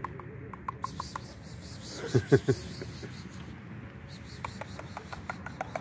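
Several stray cats crunching dry cat food, a scatter of small irregular clicks. A brief louder low sound comes about two seconds in.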